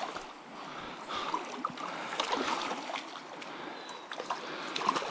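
Hooked brown trout splashing at the surface of a small stream as it is played in on the line, with the stream's water running.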